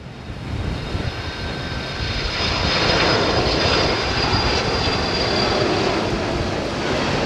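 Boeing 767-300 airliner passing low on final approach, the noise of its twin turbofan engines growing louder over the first few seconds and then holding, with a high fan whine that slowly falls a little in pitch as it goes by.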